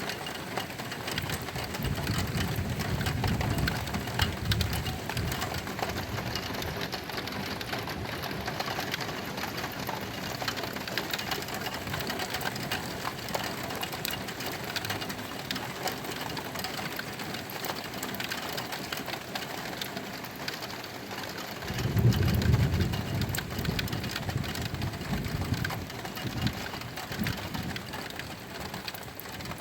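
Thunderstorm: steady rain pattering with fine rapid ticking, and two low rolls of thunder, one a couple of seconds in lasting a few seconds, and a louder one about 22 seconds in.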